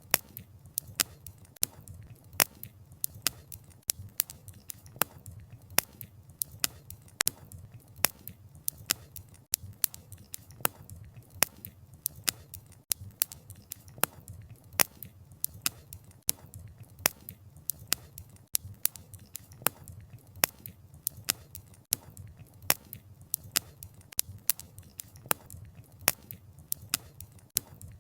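Wood fire crackling: sharp, irregular pops and snaps of burning firewood, several a second, over a low steady rumble.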